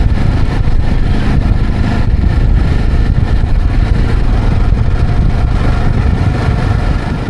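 Motorcycle engine running steadily, loud and unbroken, dropping away near the end.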